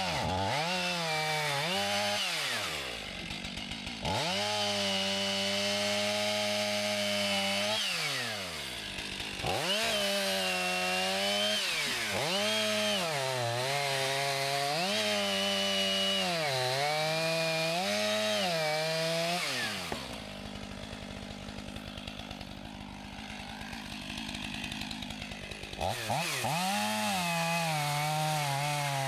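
Chainsaw cutting into a fallen tree trunk, its engine pitch sagging each time the chain bites into the wood and rising again as it eases off. About twenty seconds in it drops back to a quieter idle for several seconds, then revs up again near the end.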